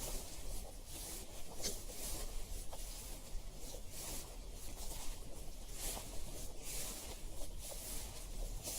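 Slow footsteps crunching on a gravel path, about one step a second, over a low steady ambient hum.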